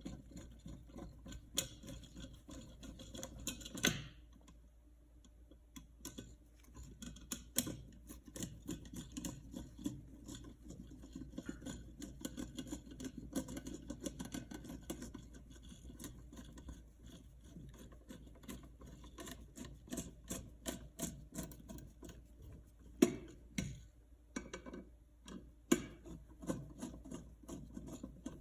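Small clicks, rubs and scrapes of a wired electrical receptacle being worked into a recessed metal floor outlet box, with a few sharper knocks of metal parts against each other.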